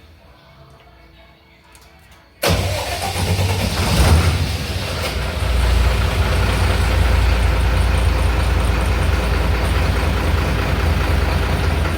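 A 165 kVA diesel generator's engine starts suddenly about two and a half seconds in, comes up to speed over the next few seconds, and then runs steadily.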